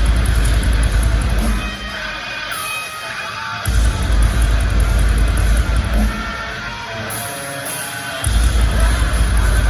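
Heavy metal music played live, with electric guitar over a heavy, loud low end. The low end cuts out twice for about a second and a half, about two seconds in and again about seven seconds in.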